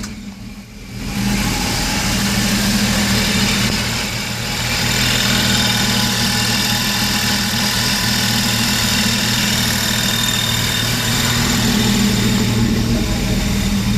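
Jeep engine idling with its belt-driven York compressor (a converted air-conditioning compressor) running and pumping up pressure for the onboard air system. A steady, even running sound after a brief dip in the first second.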